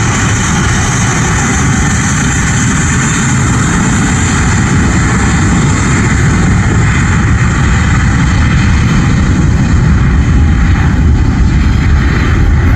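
Airbus A320-232's IAE V2527 turbofan engines at takeoff thrust: a loud, steady jet roar that grows a little louder near the end.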